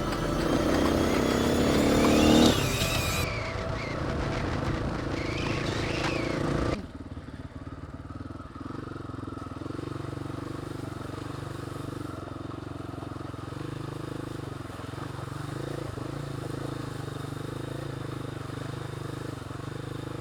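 Dirt bike engine running as it is ridden, louder and rising in pitch over the first couple of seconds. About seven seconds in the sound drops suddenly to a quieter, steady engine hum.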